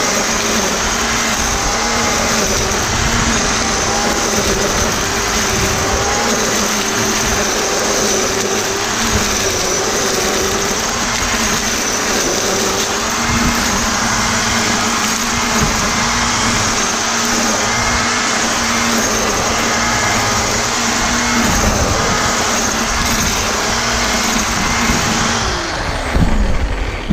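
Black & Decker GL7300 700-watt electric string trimmer running steadily at full speed, its nylon line whirring through grass. Near the end the motor is switched off and winds down with a falling whine.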